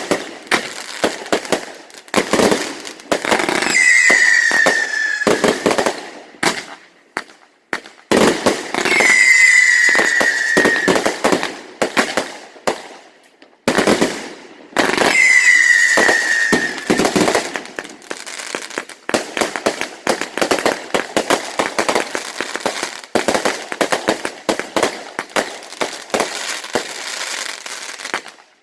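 Consumer fireworks going off: three whistles, each a slightly falling tone about a second and a half long, each followed by a volley of bangs and crackles. In the second half comes a long, rapid run of cracks.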